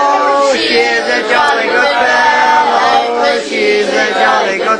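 A group of people singing together, men's and women's voices mixed, the singing carrying on without a break.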